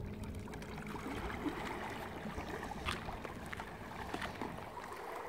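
Water churning and lapping as an inflatable dinghy driven by a small electric outboard moves away, with a few light clicks.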